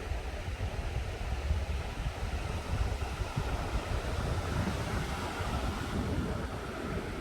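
Strong wind buffeting the microphone in a steady low rumble, over the rush of surf washing onto the beach.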